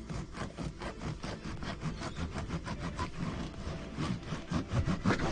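Bread knife sawing through the crust of a freshly baked sourdough loaf, in quick, rhythmic back-and-forth strokes that grow a little louder near the end.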